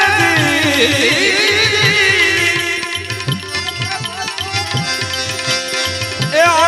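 Gujarati devotional bhajan music: a melodic line with falling runs and held, wavering notes over a steady hand-drum rhythm, likely tabla.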